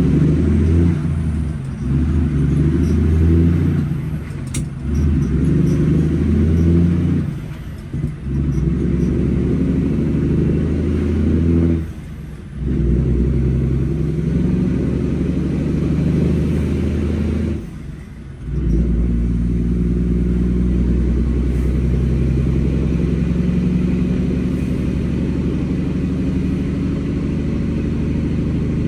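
Semi truck's diesel engine running under way, heard from inside the cab; the engine sound dips briefly three times and comes back each time.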